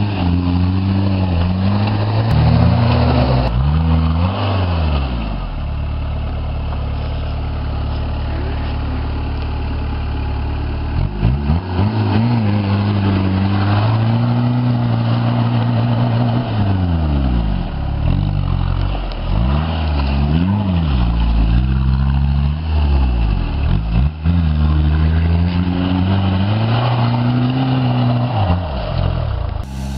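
Suzuki Samurai engine running under varying throttle, its pitch climbing and falling repeatedly as it is revved and eased off. It holds a steady pitch for several seconds about a fifth of the way in.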